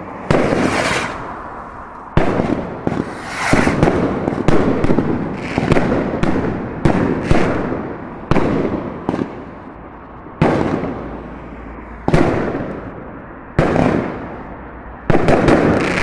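Fireworks going off: more than a dozen loud bangs at irregular intervals, each trailing off in a fading rumble.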